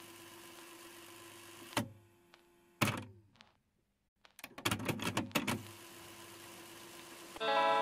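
Two separate knocks, then a quick run of about eight clicks, over a low steady hum: handling of a MacBook Air laptop.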